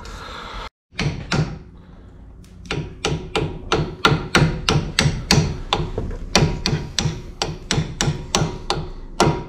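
Small hammer tapping a brake-pad retaining pin into a Brembo four-pot brake caliper, metal on metal: a couple of knocks, then a quick, even run of taps, about three a second, from about three seconds in.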